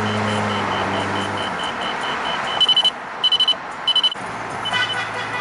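Car horn honking: three short loud blasts in quick succession, over a rapid run of high-pitched beeps.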